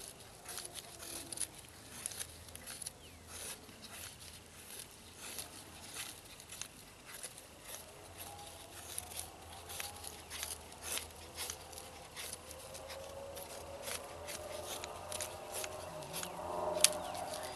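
Knife blade scraping and shaving thin curls off dry inner wood to make tinder: a run of short, irregular scraping strokes, a few a second.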